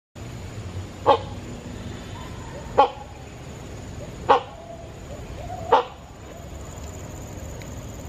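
Rhinoceros hornbill calling: four short, loud barking calls about a second and a half apart, then it stops.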